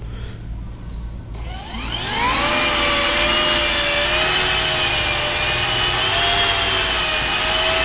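Makita cordless power head driving its blower attachment: the fan motor spins up with a rising whine about a second and a half in, then runs at a steady high whine over a rush of air.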